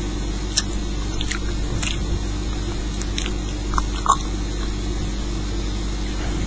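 Steady low electrical hum with a faint hiss. Half a dozen short, faint clicks and taps come at irregular moments, a small pair about four seconds in.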